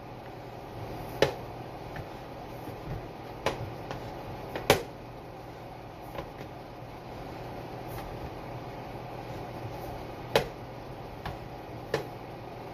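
Hands kneading and pressing cassava dough in a plastic mixing bowl, with a few sharp knocks at irregular intervals as the dough is pushed down and the bowl bumps on the counter, over a steady low hum.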